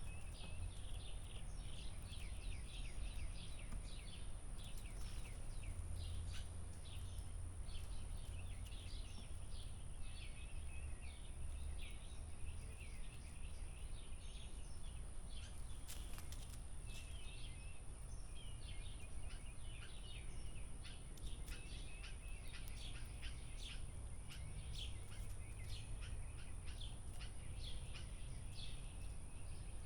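Many small birds chirping and calling continuously in quick short notes, over a steady low rumble and a constant high-pitched hiss.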